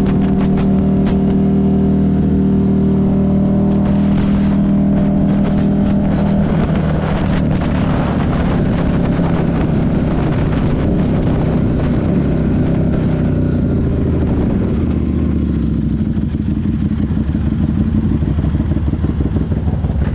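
Buell 1125CR's 1125 cc V-twin engine running while riding. It holds a steady note for the first several seconds, then turns rougher and less even from about six seconds in.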